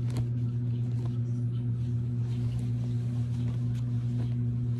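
A steady low hum throughout, with faint rustles and light ticks of cloth garments being unfolded and handled.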